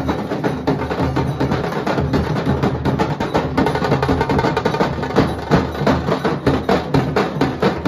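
Nashik dhol ensemble: several large two-headed barrel drums beaten with sticks, playing a fast, dense rhythm of sharp stick strikes over deep beats.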